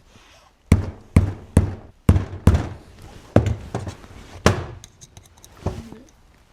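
A hammer striking a self-tapping screw set into the front shaft seal of a Denso 6SEU/7SEU AC compressor: about eight sharp metallic blows at an uneven pace, the last ones lighter. The blows drive the screw into the seal so that it can be gripped and pulled out.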